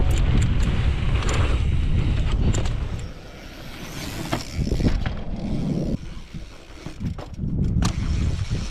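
Wind buffeting an action camera's microphone as a mountain bike rides fast down a dirt trail, with scattered clicks and knocks from the tyres and bike on the rough ground. The rumble drops away about three seconds in and comes back in gusts later.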